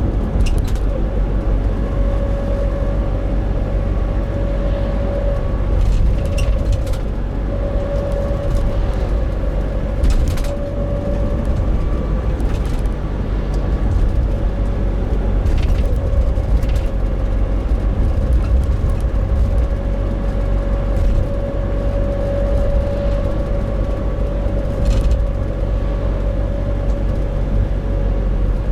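Nissan NV350 Caravan van with a YD25DDTi 2.5-litre four-cylinder turbo-diesel driving at steady throttle: road and engine rumble with a steady humming drone, the 'kōn' noise, that swells and fades. The owner hears it at around 1000–1500 rpm and wonders whether it comes from the differential. A few faint clicks sound over it.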